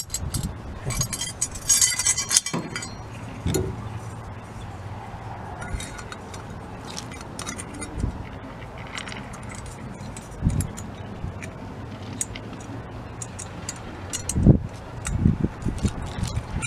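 Small metal parts of a DLTX-53 carburetor clinking and tapping as the float and inlet needle are worked into place by hand: scattered light clicks, a brief cluster of jingling about two seconds in, and a few duller knocks later.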